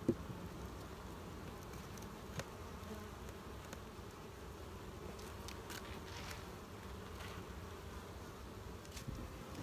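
Honey bees buzzing around an open hive, a steady hum. A sharp knock right at the start and a lighter one about two and a half seconds in, from the wooden inner cover being handled.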